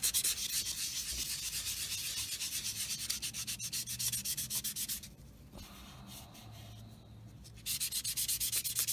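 Fine-grit sanding sponge rubbed back and forth over the plastic wing of a model aircraft kit, in quick even strokes several a second, smoothing out the putty-filled seams and scratches. The strokes pause for a couple of seconds past the middle and start again near the end.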